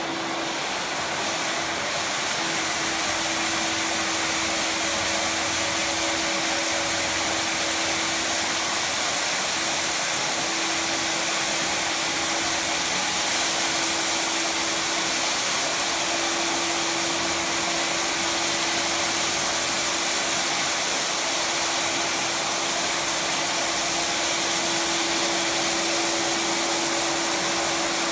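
Rotary floor sanding machine with a dust-extraction hose running on a wooden parquet floor: a steady motor hum with a hiss and one held tone, growing a little louder over the first few seconds.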